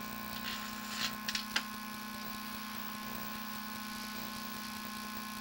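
A steady low mechanical or electrical hum, with a few brief scratchy noises about a second in.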